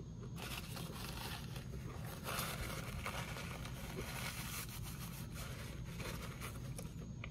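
Paper towel rustling and crinkling as it is wiped across the mouth and folded in the hands, loudest in the middle, over a low steady hum.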